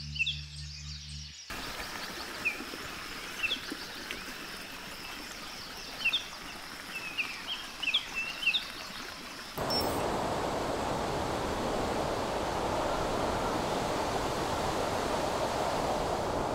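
Music ends shortly after the start, leaving small birds chirping over a soft steady outdoor hiss. About ten seconds in, a cut brings a louder, even rushing noise.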